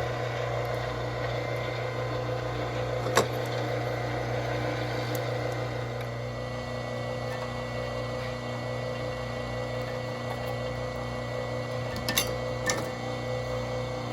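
A small motor running with a steady hum, with a thin high whine joining about halfway through. Sharp clicks or knocks come once about three seconds in and twice near the end.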